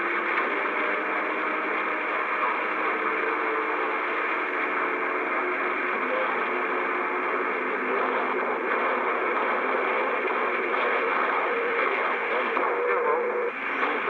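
CB radio receiver hissing with band static through its speaker, with faint steady whistling tones running under the hiss. The sound dips briefly near the end.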